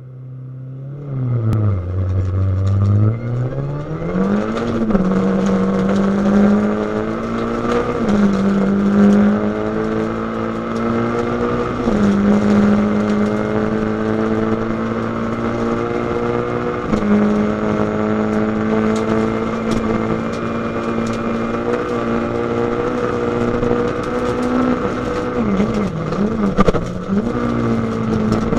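Rally car engine heard from inside the cabin, pulling away and accelerating hard along a gravel road, its revs climbing and dropping back at each upshift several times.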